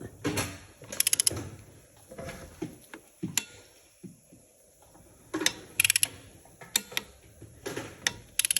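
Ratchet wrench clicking in three quick bursts with small knocks of tools between, undoing a left-hand-threaded timing-sprocket bolt on a Volkswagen Scirocco engine.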